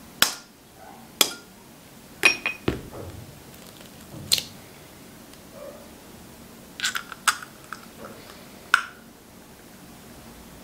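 Scattered sharp clinks and taps on a glass mixing bowl of flour, about nine in all with short ringing, as an egg is cracked into it.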